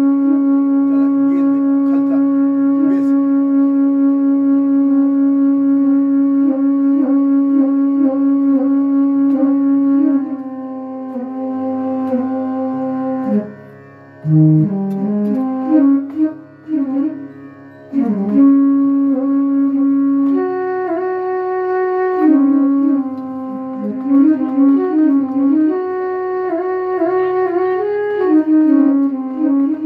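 Devotional music intro: a melody line holds one long note over a steady low drone for about ten seconds, then moves through sliding, bending notes.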